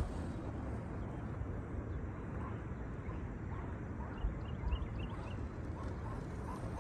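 Steady outdoor background noise with a low rumble, and a few faint short bird chirps about four to five seconds in.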